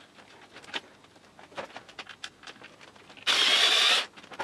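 A cordless electric screwdriver runs in one short burst of under a second near the end, a steady high whine at a screw. Before it come faint scattered clicks and taps of hands handling the unit's parts.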